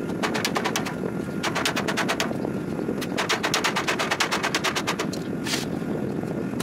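A wooden mallet rapidly tapping thin galvanized sheet-metal flashing against a square steel tube, bending it into a fold. Three runs of quick taps come at about ten a second, the longest in the middle, and a short scraping rush follows near the end.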